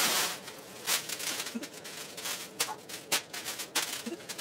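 Clear plastic packaging bags crinkling and rustling as they are handled and pulled out of a cardboard shipping box, with several sharp crackles.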